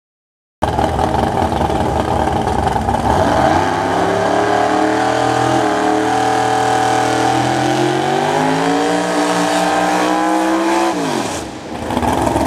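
Fox-body Ford Mustang drag car doing a burnout: the engine is held at high revs with the rear tyres spinning, its pitch climbing steadily. Near the end the revs fall away sharply as the throttle is released.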